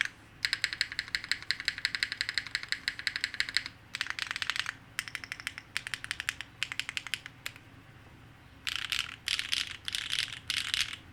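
Fast typing on a Solaris 60% mechanical keyboard with Akko x HMX Cilantro tactile switches, top-mounted on a polypropylene plate: rapid clacking keystrokes in runs, with a pause of about a second near the end.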